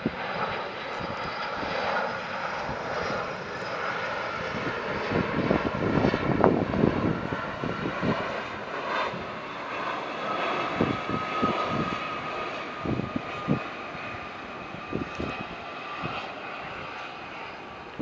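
Boeing 757 jet engines on approach, a steady rushing roar with a thin whine, loudest about six seconds in and fading toward the end. Gusts of wind buffet the microphone through the middle.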